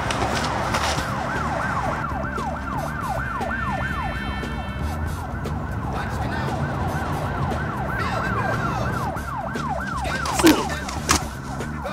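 Emergency-vehicle siren in its fast yelp mode, sweeping up and down about four times a second over a steady low rumble. Two sharp, loud sounds cut in near the end.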